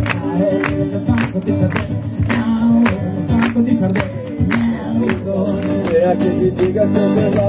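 Band music: strummed acoustic guitars and male voices singing over a steady percussive beat.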